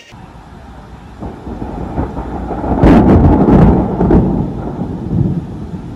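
Thunder rolling: a low rumble builds from about a second in to a loud peak with several sharp cracks around three to four seconds, then rumbles away.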